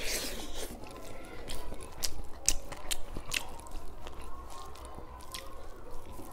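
A person eating rice by hand and chewing with the mouth close to the microphone: wet smacking and a run of sharp mouth clicks throughout.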